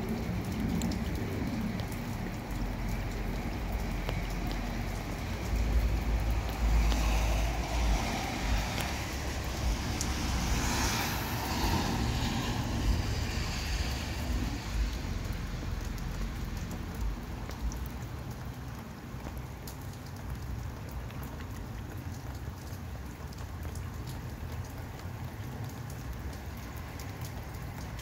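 Steady rain falling, with many small drop ticks. A louder rushing swell rises about a fifth of the way in, lasts several seconds and fades by the middle.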